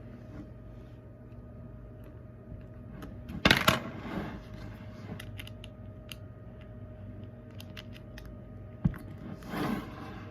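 A plastic slime container being pried at to get its stuck lid off. There is a loud clatter about three and a half seconds in, small clicks and taps after it, a sharp click and another rustling clatter near the end.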